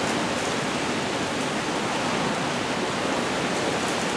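Heavy thunderstorm rain pouring down steadily, an even, continuous hiss.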